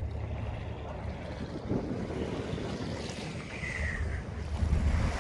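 Wind buffeting the microphone over sea water washing against a concrete seawall, a steady low rumble that swells in gusts. A short high squeak sounds about three and a half seconds in.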